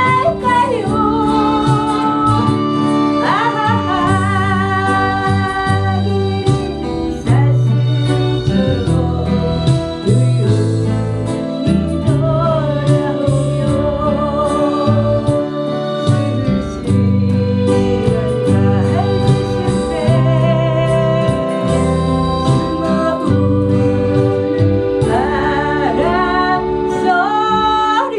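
A woman singing a Korean popular ballad with vibrato over an instrumental backing track with a steady bass line and sustained keyboard notes.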